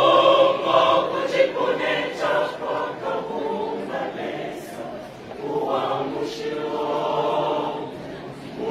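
Large church choir of men and women singing a gospel song together, in phrases that ease off and swell again.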